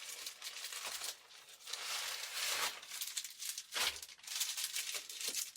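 Plastic packaging crinkling and rustling as items are pulled out of it by hand, an uneven crackle with a few louder swells.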